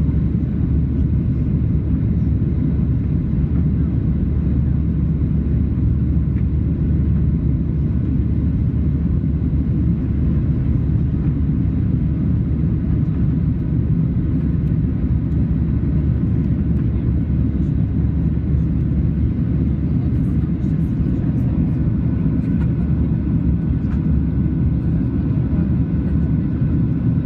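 Steady in-flight cabin drone of a Boeing 737-700 airliner: low airflow and CFM56 engine noise with a few faint steady tones above it, unchanging throughout.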